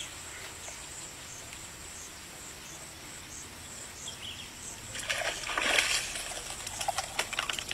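Quiet pond-side background, then about five seconds in a loud splash and thrashing: a catch is yanked out of a weedy pond on a bamboo pole. Sharp rustles and slaps follow for about two seconds.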